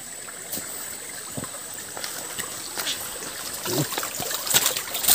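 Small forest stream trickling over rocks, a steady hiss of running water. Scattered short knocks and rustles of footsteps and brushing through bamboo leaves grow louder near the end.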